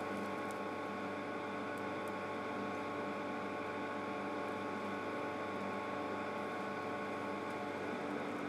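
Forge blower running with a steady hum, air blasting through the fire bed so the forge fire burns high and throws sparks, with a few faint crackles.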